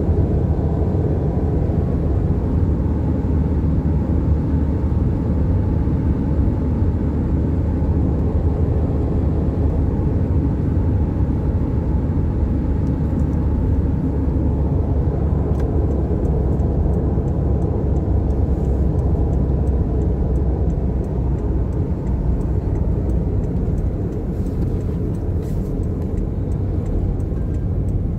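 Car cruising at highway speed, heard from inside the cabin: a steady low rumble of tyres, engine and wind, easing slightly near the end.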